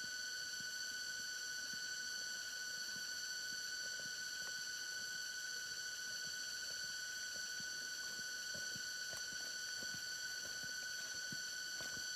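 A steady high-pitched hum with overtones, unchanging throughout, over faint scattered ticks and rustles.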